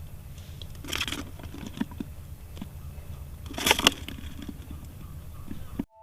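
Crunching, crackling handling noises, with two louder bursts about a second in and past the middle, over a low steady rumble; the sound cuts off abruptly near the end.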